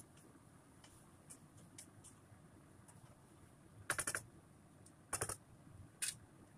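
Wooden spatula clacking and scraping against a wok while stir-frying vegetables. It comes in three short bursts of rapid taps in the second half, with faint scattered clicks before them.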